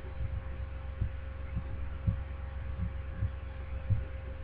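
A steady low hum with soft, irregular low thumps every half second or so.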